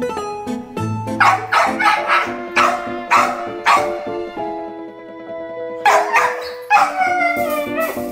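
A dog barks about five times in quick succession, then gives a drawn-out howl that wavers up and down in pitch, over background piano music.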